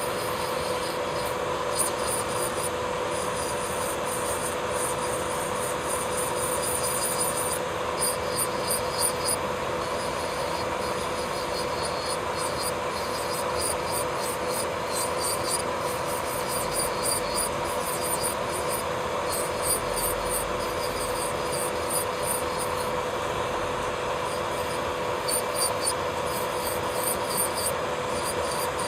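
Electric nail drill (e-file) running at a steady whine while its bit grinds base gel off a fingernail, with a rhythmic scratchy rasping each time the bit is passed over the nail.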